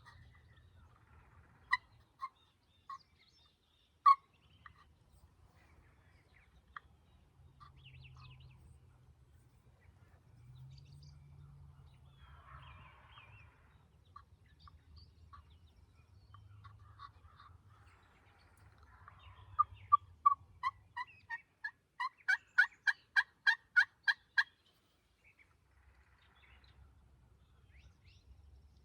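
Turkey yelping: a few scattered single yelps, then near the end a run of yelps that turns into a fast, even series of about a dozen notes, roughly four a second.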